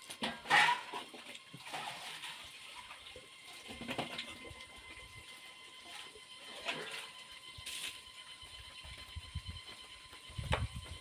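Wet chewing and lip-smacking of a man eating meat with his fingers, with several short, louder wet smacks spread through, the loudest about half a second in.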